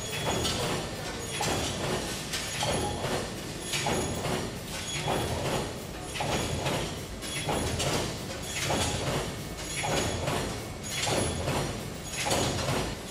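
Screw-factory wire feed running: steel wire drawn through grooved straightening rollers toward the forming machine, a mechanical clatter and rush that swells in a regular pulse about once a second.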